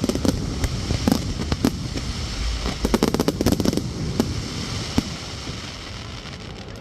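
Fireworks going off: rapid popping and crackling bangs, densest about three seconds in, then one sharp bang and a thinning, fading crackle near the end.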